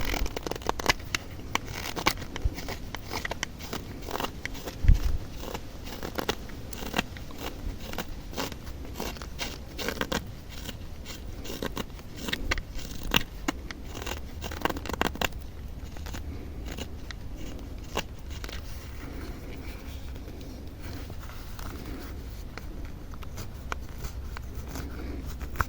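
Knife whittling wood: short, irregular scraping and cutting strokes, thick for the first half and sparser later, with a dull knock about five seconds in.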